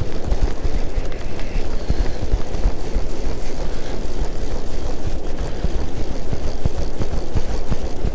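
Wind buffeting the microphone: a loud, uneven low rumble with hiss that stops abruptly at the end.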